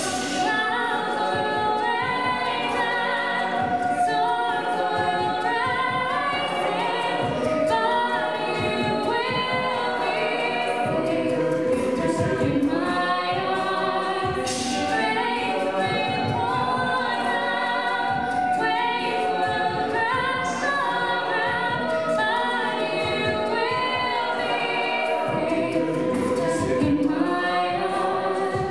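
Mixed-voice a cappella group singing live: a female lead over sustained backing harmonies from male and female voices, with occasional sharp vocal-percussion hits.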